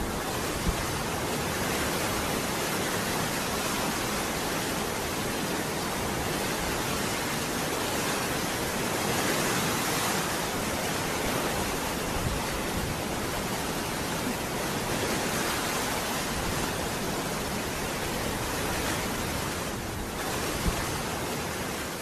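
Waterfall rushing steadily: an even, unbroken wash of falling-water noise.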